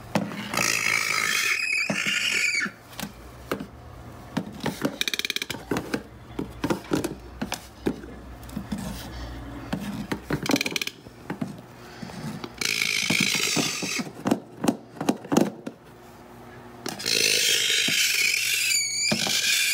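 Male toco toucan making the raspy, hissing noise it gives when hormonal and nesting, in three long stretches of a couple of seconds each, with scattered clicks and taps between them.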